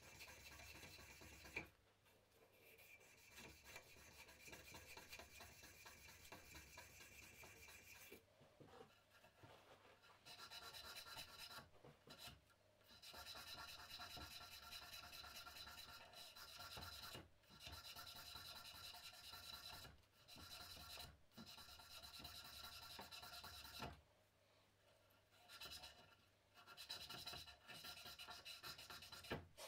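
A strip of sandpaper is pulled back and forth around a wooden hammer handle, making a steady dry rubbing sound. It runs in long stretches with a couple of short pauses.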